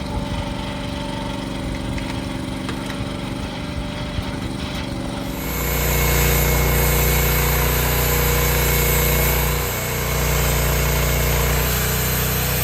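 Small engine running steadily; about five seconds in it becomes much louder and fuller, with a short dip in speed near ten seconds, as if briefly put under load.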